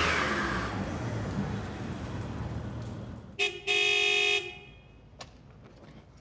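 Mitsubishi 3000GT VR-4 pulling up with its engine rumble fading away, then its horn sounded twice: a short toot and a longer honk of under a second. A faint click follows.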